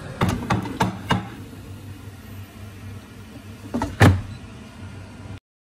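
A kitchen utensil knocking against a plate and worktop: four quick knocks about a third of a second apart, then two more a few seconds later, the second of them the loudest, over a steady low hum. The sound cuts off abruptly just before the end.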